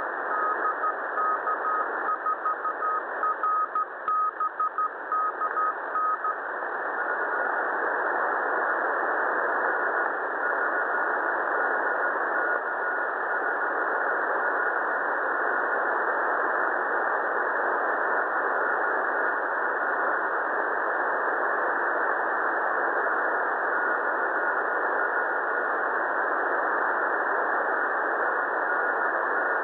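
Morse code (CW) on 7011 kHz heard through a shortwave receiver: a beeping tone keyed in dots and dashes over static hiss. The strong signal stops about six seconds in, leaving mainly static with a fainter, slightly higher-pitched Morse signal coming and going.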